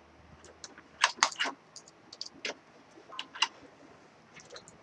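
Irregular small clicks and clatters of plastic and metal computer parts being handled and pulled free inside a desktop case, with a quick cluster of clicks about a second in.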